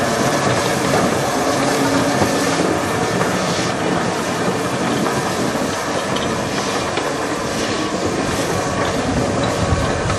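An LMS 4F 0-6-0 steam locomotive and its train of coaches running past, giving a steady, loud, continuous noise.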